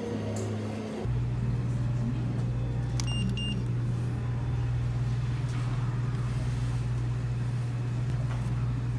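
Background music stops about a second in and gives way to a steady low hum of café room tone. A short double electronic beep sounds about three seconds in.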